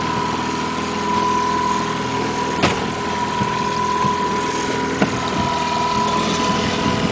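Fishing boat's engine running steadily while trolling, with a steady high whine over it. Two sharp knocks come about two and a half and five seconds in.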